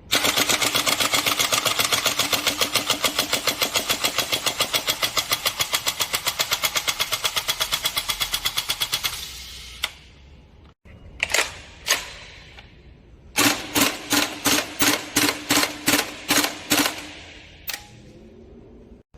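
Airsoft gun firing a long full-auto burst, a rapid even stream of shots over a steady motor hum, that stops about nine seconds in. After a pause come two single shots, then a string of about nine quick semi-auto shots.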